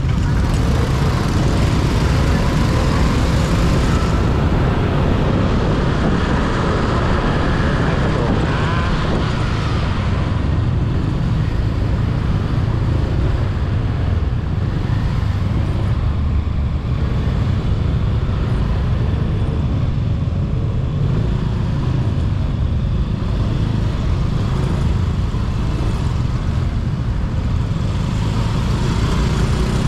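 Honda scooter riding through city traffic: a steady, loud low rumble of engine and road noise, with cars and other motorbikes around it.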